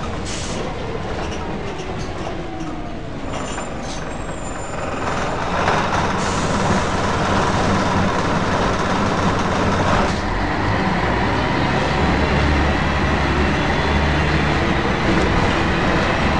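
Scania L113CRL bus heard from inside while under way: its diesel engine runs with road and body noise, growing louder about five to six seconds in, with a steady low engine drone stronger in the second half.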